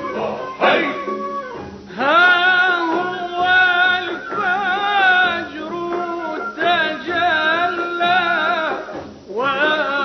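A male singer performing an Arabic religious hymn (tamjeed) with instrumental accompaniment. A short instrumental passage gives way about two seconds in to long, ornamented sung phrases with a wavering vibrato on the held notes.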